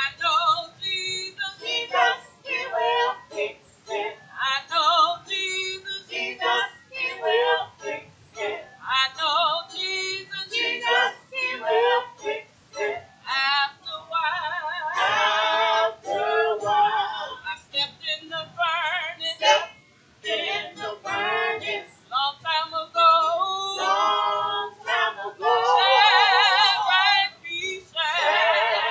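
Church praise team singing into microphones, women's voices leading, in short phrases with long held notes that waver with vibrato, two of them near the middle and near the end.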